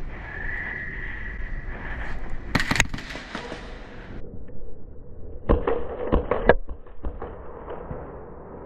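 Airsoft guns firing: a quick group of sharp snapping shots about two and a half seconds in, then a longer string of five or six shots around the six-second mark.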